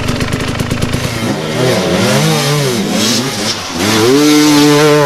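Dirt bike engine chugging at low revs, then revving up and down in repeated swells as the throttle is worked on a steep climb, held high near the end.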